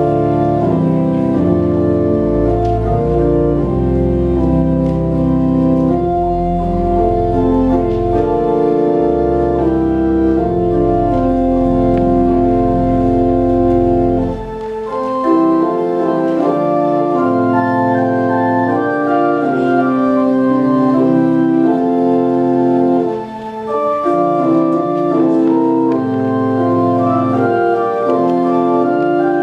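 Church organ playing a slow piece in sustained chords, with a low bass line under it that stops about halfway through, leaving only the higher parts; short breaks between phrases.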